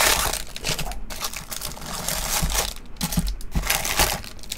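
Foil-wrapped baseball card packs rustling and crinkling as they are pulled out of a cardboard box, with scattered light clicks and knocks.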